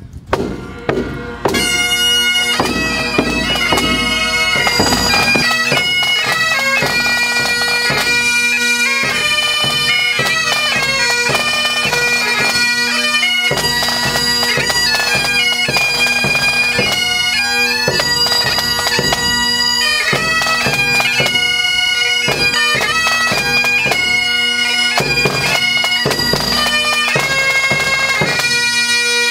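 Pipe band of Great Highland bagpipes playing a tune over their steady drones, with a bass drum beating time. A few drum strokes sound first, and the pipes come in about a second and a half in.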